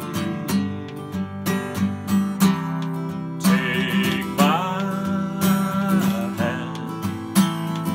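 Acoustic guitar strummed in a steady, slow rhythm, with a man's voice singing a wordless, gliding phrase over it in the middle.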